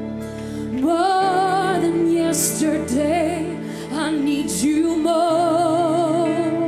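A woman singing a slow gospel worship song, her held notes swelling with a wide vibrato, over sustained accompanying chords.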